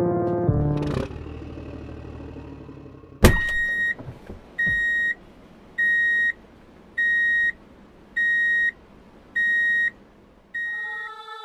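A sharp click, then an electronic beeper sounding seven times at one steady high pitch, each beep about half a second long and about 1.2 seconds apart, in the pattern of a truck's reversing alarm.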